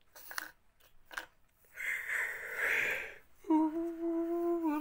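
A yawn stifled behind a closed mouth. Two short sniffs, then a long hissing intake of breath, then a loud, drawn-out hummed groan that holds one pitch and starts to fall near the end.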